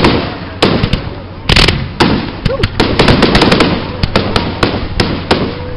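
Aerial fireworks shells bursting overhead: a string of loud bangs, one after another, with a rapid run of sharp reports about three seconds in.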